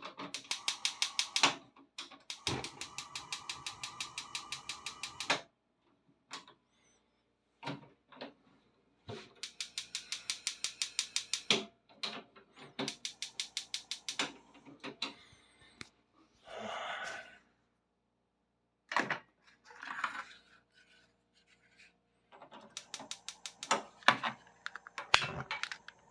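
SSG313 stove's spark igniter clicking rapidly, about ten clicks a second, in repeated bursts of a second or a few seconds with short pauses between, as the burner is tried again and again.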